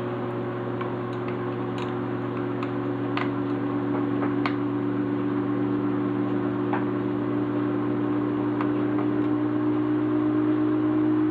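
A steady machine hum with several faint, sharp clicks in the first half, like small parts or tools being handled.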